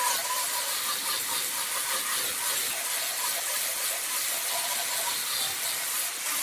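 Wood lathe running while the spinning wood is worked, giving a steady hiss with a faint steady whine under it.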